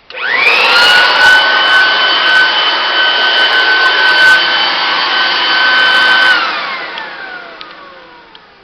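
Black & Decker 2500 W electric blower/vacuum switched on, its motor spinning up almost at once to a steady high whine with rushing air. About six seconds in it is switched off and the whine falls in pitch as the motor winds down.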